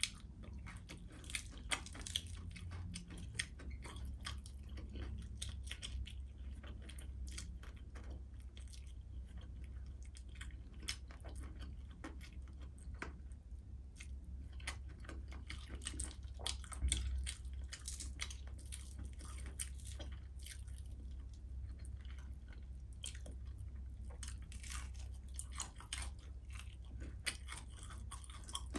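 Close-miked chewing and biting of crispy fried fish, with many small irregular crunches and crackles, over a steady low hum.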